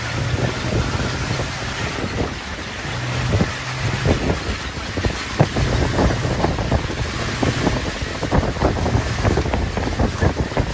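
Wind buffeting the microphone: a steady rushing noise broken by rough, crackling gusts, with a low hum that comes and goes underneath.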